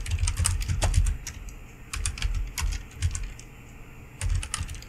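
Typing on a computer keyboard: quick runs of key clicks in short bursts, with a pause of about a second before a last short run near the end.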